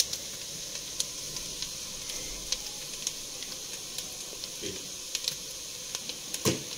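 Onions frying in oil in a pot: a steady sizzle with scattered crackles and pops. There is a single knock near the end.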